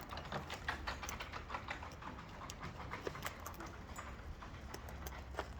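Parrots feeding at close range: a run of quick, irregular little clicks and crunches of beaks on seed and food, thick at first and thinning out after a second or two.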